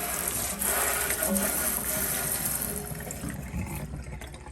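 Water running from a kitchen faucet into the sink, a steady hiss that fades away near the end.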